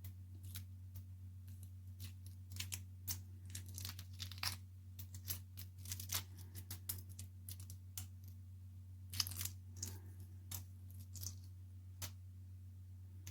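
Shell being peeled off a hard-boiled egg: irregular small cracks and crinkles of breaking eggshell, faint, over a steady low hum.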